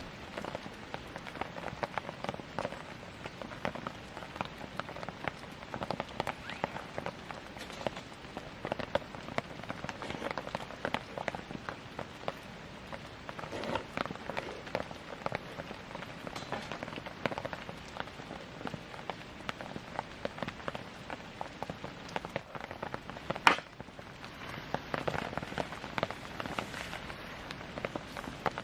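Wood campfire crackling: a dense run of small snaps, with one loud sharp pop well past the middle.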